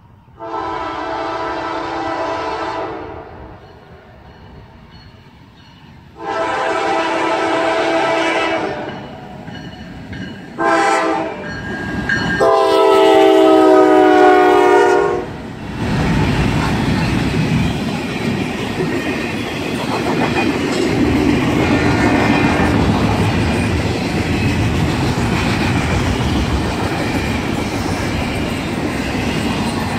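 Norfolk Southern diesel locomotive's air horn sounding the grade-crossing signal: long, long, short, long. The last blast drops in pitch as the locomotive passes. A freight train of intermodal flatcars then rolls by with steady wheel and rail noise and clickety-clack over the rail joints.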